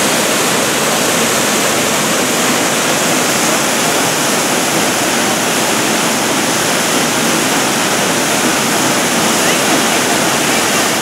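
Hedge Creek Falls pouring down a rock face into its plunge pool, a loud, steady, unbroken rush of falling water. The creek is running high with mountain runoff.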